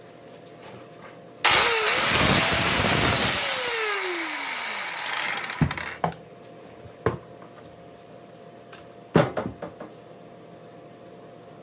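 A power grinder switches on suddenly and runs loudly against metal, its pitch falling as it winds down over about four seconds. Several sharp knocks follow.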